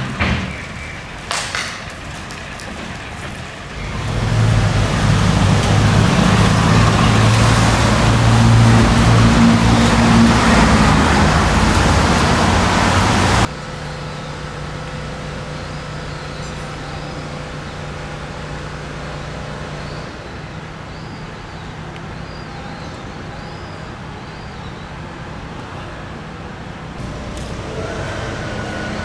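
Road traffic: a motor vehicle's engine running close by, loud and steady for about ten seconds and cut off suddenly, followed by a quieter steady hum of city traffic.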